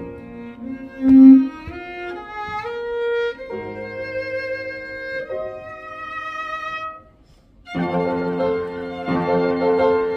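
A morin khuur (two-string Mongolian horsehead fiddle) is bowed over piano accompaniment. It plays a melody of held notes with vibrato and a quick climbing run. The music breaks off briefly just after seven seconds, then comes back fuller.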